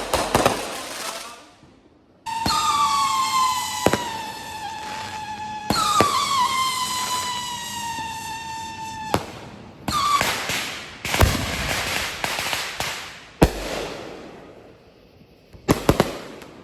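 Fireworks going off: sharp bangs and crackles, and two long whistling fireworks one after the other, each whistle about three seconds long and sinking slightly in pitch before a bang.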